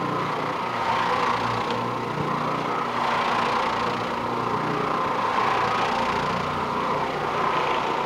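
Oreck Orbiter orbital floor machine running steadily with its nylon carpet brush, dry-scrubbing carpet: a constant motor hum with a brushing hiss that swells and eases gently as the machine is moved.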